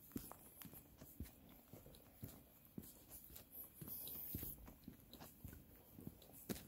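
Faint footsteps of a hiker crunching along a dirt trail, about two steps a second, with a brief rustling hiss a little past the middle.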